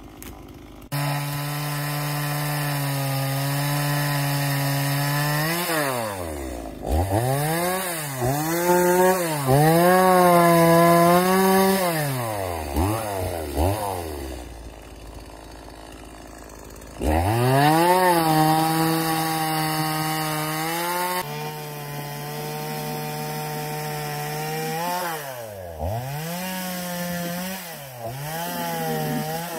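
Stihl MS170, a small two-stroke chainsaw, running at high revs and cutting wood, its pitch dropping and climbing back several times as the throttle eases and opens again, with a quieter stretch in the middle.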